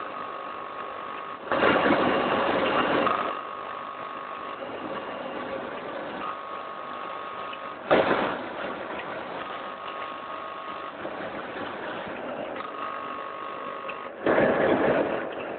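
Vertical auger powder-packing machine running: a steady mechanical hum with a whine that cuts in and out in short spells, and three louder noisy bursts about six seconds apart, the middle one starting with a sharp click.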